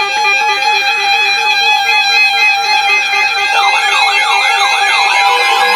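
Weather radio alert alarms sounding: loud, steady electronic tones with a rapid repeating beep pattern, joined about three and a half seconds in by a siren-like tone that sweeps up and down over and over. The alarm signals that a new warning is about to be broadcast.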